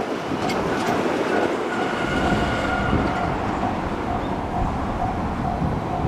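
A Japanese level-crossing warning bell rings about twice a second while a 381-series limited express train runs past at speed. The train's rumble grows heavier about two seconds in.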